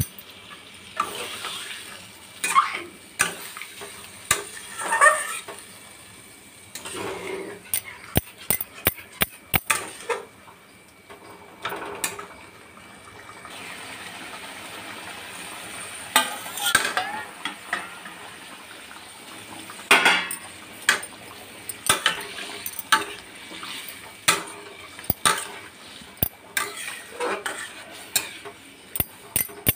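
Metal spatula scraping and clinking against a steel kadai, stirring potatoes in a thin curry gravy, in irregular strokes.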